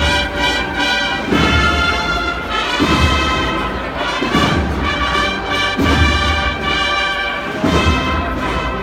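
Spanish agrupación musical of brass and drums playing a Holy Week processional march: sustained brass chords over a heavy drum beat that falls about every second and a half.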